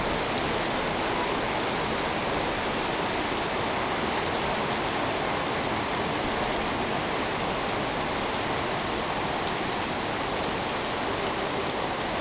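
Heavy rain pouring down, a dense, steady hiss with no let-up.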